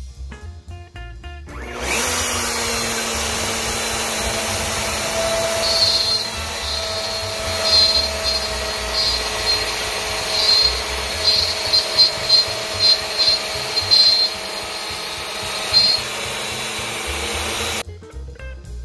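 CNC router spindle running at 18,000 rpm with a quarter-inch downcut endmill cutting slots in wood at a 60 inches-per-minute feed: a steady whine and cutting noise with louder scratchy bursts through the middle. It starts about two seconds in and stops about a second before the end, with background music either side.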